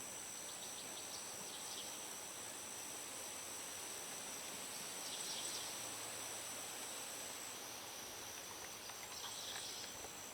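Faint outdoor ambience of insects trilling steadily at a high pitch, with short bird chirps about five seconds in and again near the end.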